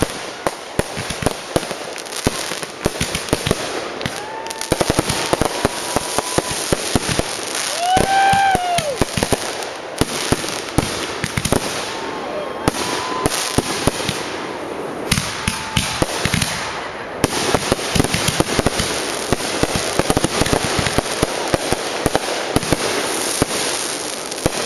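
Consumer fireworks finale: a dense, continuous barrage of bangs and crackling from many shells and cakes going off at once. Several short whistles that rise and fall in pitch cut through the barrage.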